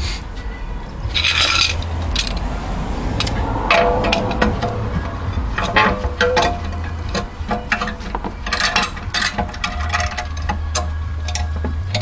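Steel hand tools clicking, clinking and scraping against a rear brake caliper as a C-clamp and wrench are set on the caliper piston, with several short metallic rings.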